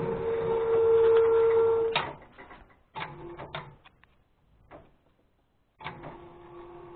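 Wood-Mizer LT15 band sawmill running with a steady high-pitched hum that stops abruptly about two seconds in. A few clicks and knocks follow in near quiet, and about six seconds in the machine hums again, softer and lower in pitch.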